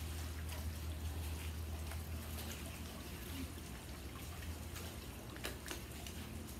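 Pool water lapping and trickling, with a steady low hum underneath and a few faint ticks about five and a half seconds in.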